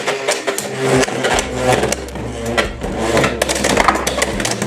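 Two Beyblade X tops spinning in a plastic stadium: a steady whirring scrape of their tips on the stadium floor, with many scattered clicks and light taps.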